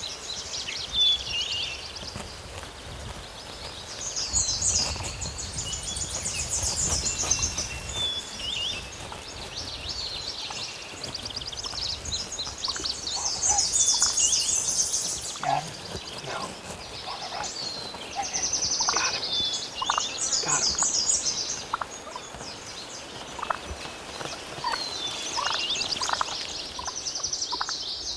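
Wild turkeys gobbling, a rattling gobble every few seconds, with shorter calls in between.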